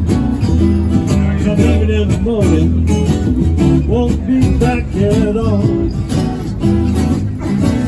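Live blues band playing: an upright double bass plucked under strummed acoustic guitars, with a lead melody of bending notes through the middle.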